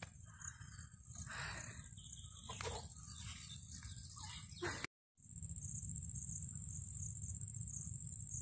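Insects trilling steadily at a high pitch over a low outdoor rumble, with faint rustles and clicks in the first half. The sound cuts out for a moment about five seconds in, and the trilling comes back stronger.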